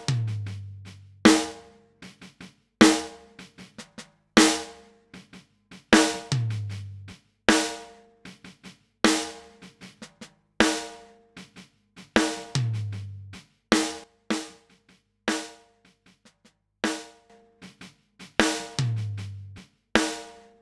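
Slow recorded drum loop played through a Great River PWM-501 500-series compressor: a sharp snare-like hit about every second and a half, a deep bass drum under every fourth hit, and light ticks between.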